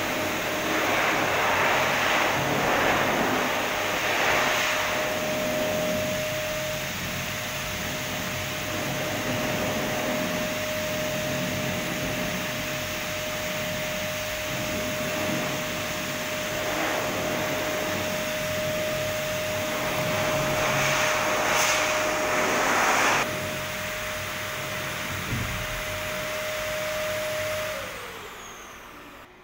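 Pet grooming blower dryer running, a steady rush of air through its hose with a constant motor whine, growing louder and softer as the nozzle moves. Near the end it is switched off and the motor winds down, its whine falling in pitch.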